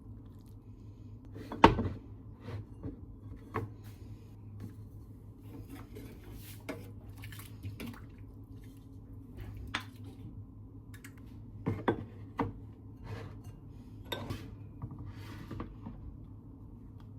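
Dishes and utensils being handled in a kitchen: a scattered series of knocks and clinks, the loudest about two seconds in and a pair near the middle, over a steady low hum.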